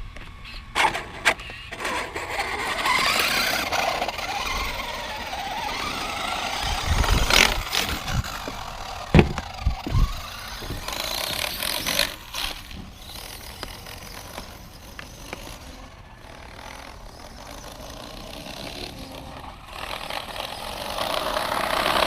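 Traxxas X-Maxx RC truck's electric motor whining up and down in pitch as it is driven, with several sharp knocks in the first half. The truck keeps losing power, which the driver thinks is the rear diff going.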